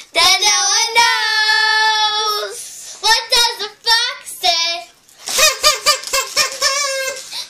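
Girls singing without accompaniment. A long held note comes first, then, after a short break, a run of quick repeated syllables.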